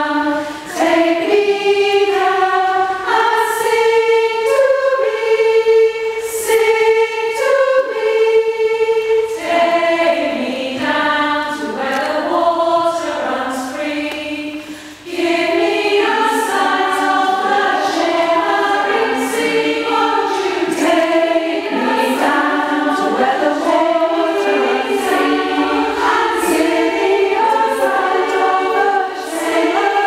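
Community choir singing together in parts. The sound dips briefly about halfway through, then all the voices come back in.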